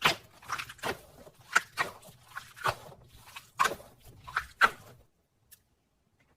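A series of short crackling, squelching strokes, roughly two a second, from a sticky or crunchy material being worked by hand. They stop about five seconds in.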